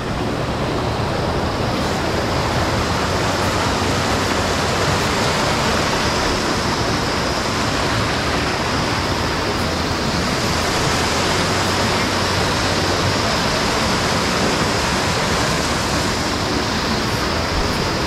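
Mountain stream rushing over boulders and small cascades: a steady, unbroken wash of water.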